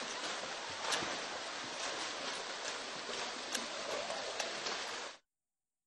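Swimmers racing in a pool, their strokes making a steady wash of splashing water with a few sharper splashes. It cuts off abruptly about five seconds in.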